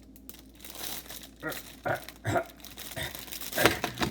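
Food wrapper being pulled off and crinkled by hand: a series of short crinkling, tearing rustles, the loudest near the end.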